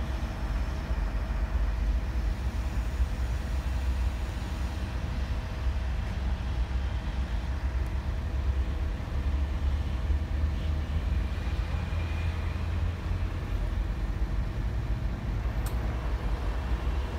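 Mobile crane's diesel engine running steadily with a low rumble while it holds a suspended load.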